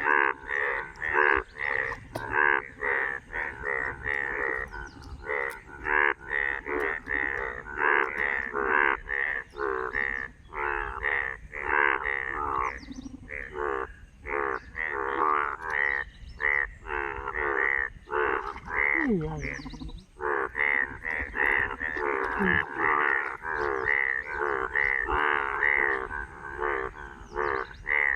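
Chorus of frogs croaking after rain: many calls overlapping in a fast, continuous pulsing rhythm.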